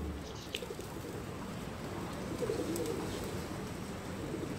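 Feral pigeons cooing, low and wavering, about two seconds in and again near the end, over a steady background of street noise.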